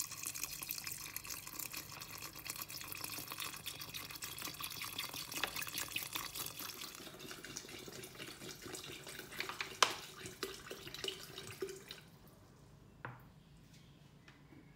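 Water pouring from a plastic bottle into a 10-litre plastic jar of pineapple peels and sugar, a steady splashing stream that stops about twelve seconds in; this is the water being added to start a fruit-peel enzyme brew. One sharp knock sounds a little before the pour ends.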